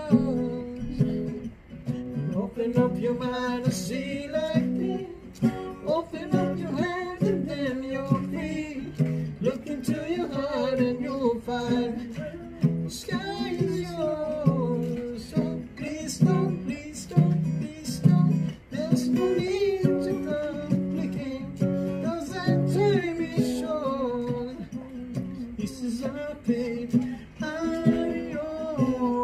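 A man singing along to a strummed acoustic guitar.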